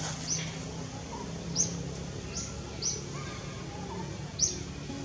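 Short, sharp, high bird chirps, about five at uneven intervals, each a quick downward sweep, over a low steady hum.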